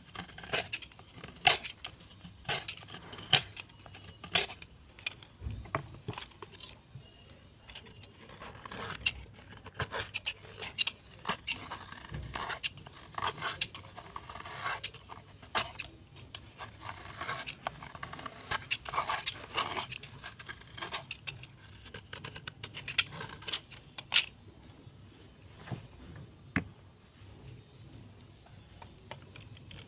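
Close-up crunching and scraping of a soaked, crumbly earthy block: many irregular sharp clicks and short scrapes, thinning out after about 24 seconds.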